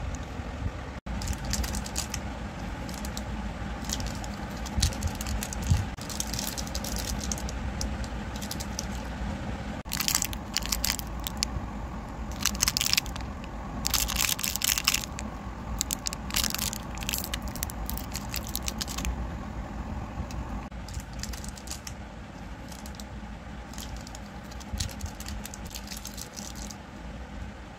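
Plastic candy wrappers crinkling and tearing as individually wrapped toffees are handled and unwrapped: runs of sharp crackling, heaviest through the middle.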